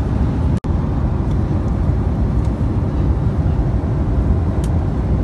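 Steady rumble of airliner cabin noise in flight, from the engines and the air rushing past. The sound drops out completely for an instant about half a second in.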